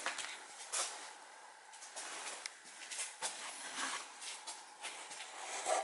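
Irregular soft knocks and rustles of handheld camera handling and footsteps while walking, with the loudest knock near the end.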